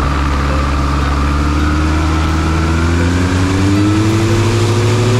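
Tecnam P2010's Continental 170-horsepower turbo-diesel engine and propeller running steadily, the engine note rising in pitch from about halfway through as power comes up.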